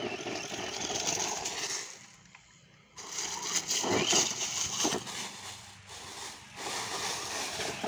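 Radio-controlled monster truck driving over dirt and dry leaves: its tyres crunch and scrape through the leaves and grit in spells, with a near-silent break of about a second around two seconds in.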